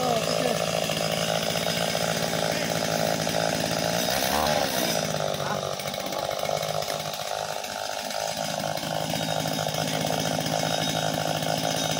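Small two-stroke petrol engine of a Cantas motorised oil palm harvesting pole running steadily after being pull-started. Its note rises and falls briefly about four seconds in, then eases slightly.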